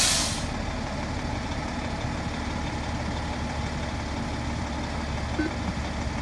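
Fire engine's diesel engine idling steadily close by, with a short hiss of its air brakes right at the start.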